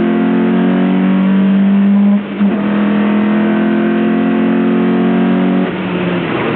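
Lotus Elise's four-cylinder engine pulling hard under acceleration, its pitch rising, with a quick upshift about two seconds in. Near the end the driver lifts off and the engine note falls away.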